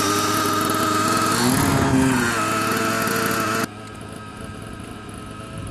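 Small glow-fuel engine of a model helicopter running at idle just after being started, steady with a brief dip in pitch about a second and a half in. About two-thirds of the way through the sound drops suddenly much quieter but keeps running.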